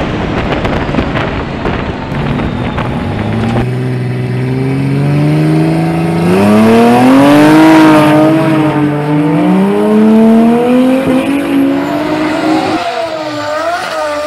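Drag cars with 1JZ straight-six engines at full throttle. First a noisy run heard from on board, then a car launching and accelerating hard, its engine pitch climbing in steps through the gear changes. Near the end a different engine revs up and down.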